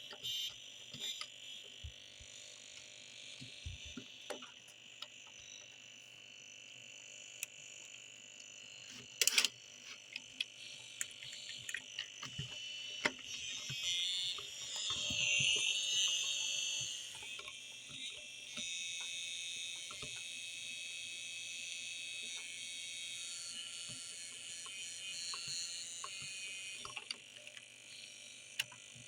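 Electronic tones from a circuit built with a Znatok construction kit, sounding through its small speaker: steady high, alarm-like tones that warble and shift, loudest about halfway through, with scattered sharp clicks from switching or key presses.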